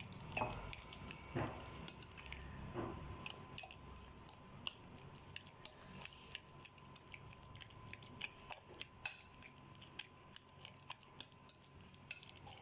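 Spoon mashing soft roasted eggplant in a bowl, with light, irregular clicks and scrapes of the spoon against the bowl, a few per second, and some duller knocks in the first few seconds.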